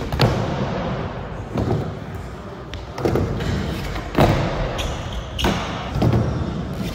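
Skateboard wheels rolling on hard park surfaces with a series of sharp knocks and thumps from the board, about six in all, as tricks are popped and landed.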